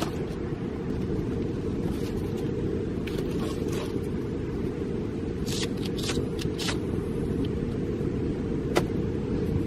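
Steady wind rumble on the microphone, with a few light clicks and rattles of burnt plastic lighters being handled and one sharp click near the end.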